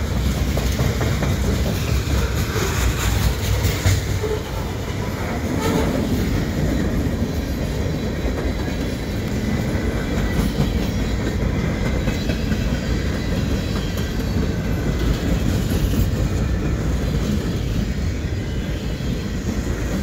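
Freight train cars, covered hoppers and then centerbeam flatcars, rolling past close by in a steady rumble, with the clatter of steel wheels over the rails.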